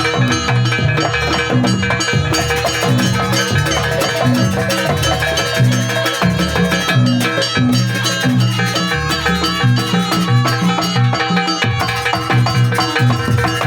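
Live Banyuwangi jaranan ensemble music playing a sampak: drums beat a fast, even rhythm under a dense layer of ringing metal percussion.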